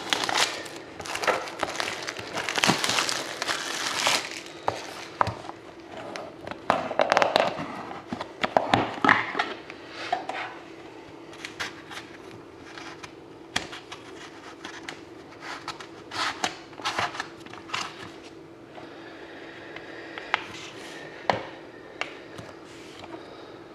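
A sealed metal hockey-card tin being opened by hand. The first half is dense crinkling and scraping as the seal is cut with a small tool. After that come scattered clicks, taps and light scrapes as the cardboard inner box is opened and the stack of cards is slid out.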